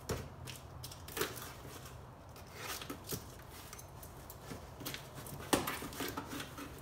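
A small cardboard box being opened by hand: scattered rustles, scrapes and taps as its flaps are pulled open and the contents handled, the sharpest a single knock about five and a half seconds in. A faint steady low hum runs underneath.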